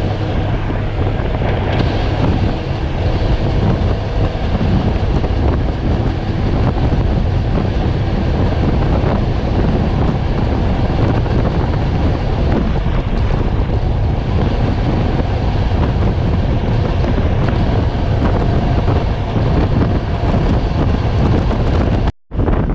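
Wind rushing over a microphone held out of the window of a moving passenger train, with the train's running noise underneath. It cuts out for a moment near the end.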